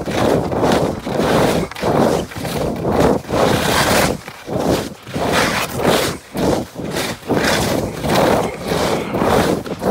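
Skis scraping and bumping over packed snow in quick, rhythmic mogul turns, a loud hiss that surges about twice a second with each turn.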